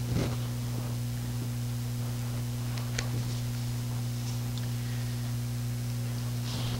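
Steady low electrical mains hum from the church's sound system, with a brief knock just after the start, a sharp click about three seconds in and a few faint ticks and rustles.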